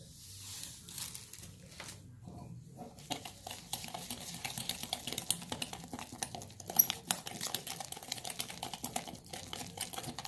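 Sand poured into a bowl with a faint hiss, then, from about three seconds in, a wet mixture of sand, cornstarch and dish soap being stirred and scraped around the bowl: a dense run of small gritty clicks and scrapes, with one sharper knock near the middle.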